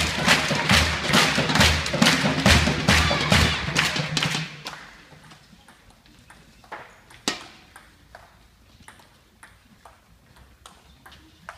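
Music with a steady beat over crowd noise, which stops about four and a half seconds in. Then a table tennis rally: the celluloid ball clicking sharply off the bats and table, about two hits a second.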